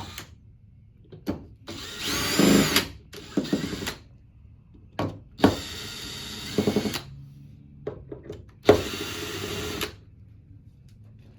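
Electric drill screwdriver backing out screws, running in several short bursts of whirring with small clicks and handling noises between them.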